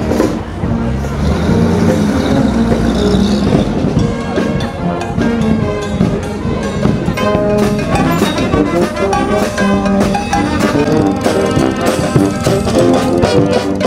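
Brass band music playing, with a steady beat.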